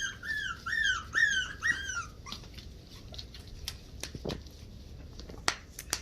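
Havanese puppy whimpering: a quick run of short, high, falling cries, about three a second, that stops about two seconds in, followed by faint scattered clicks and taps.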